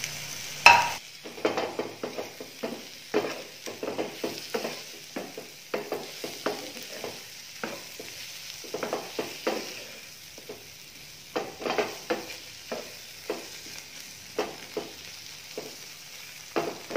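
Wooden spoon stirring and scraping meat, onions and chopped tomatoes in a non-stick frying pan over a steady sizzle of frying. The strokes come irregularly, about one or two a second, with one sharp knock against the pan about a second in.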